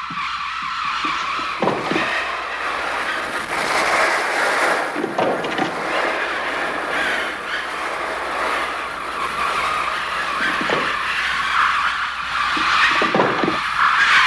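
Electronic bird sounds from a Mixtur-Trautonium: a dense, continuous mass of shrill, squealing cries imitating a large flock of attacking birds.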